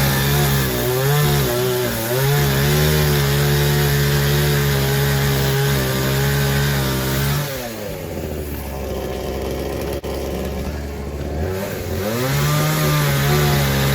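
Gas chainsaw engine held at high revs for several seconds, its pitch wavering slightly under load. About halfway through the throttle is let off and the engine drops to a low idle, then revs back up near the end.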